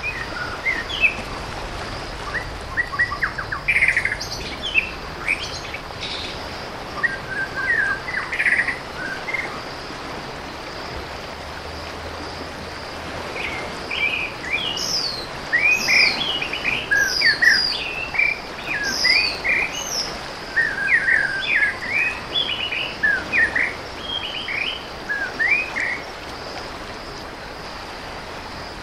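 Several birds chirping and calling in short bursts, sparse at first, pausing about a third of the way in, then busy through the second half, over a steady high-pitched insect drone.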